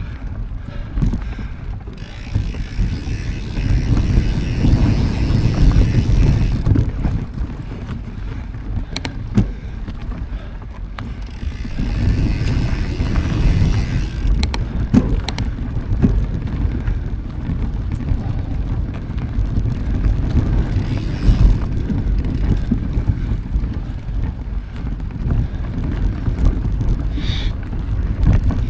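Mountain bike being ridden: wind rumbling on the microphone over the bike's rolling noise, swelling and easing, with scattered clicks and rattles.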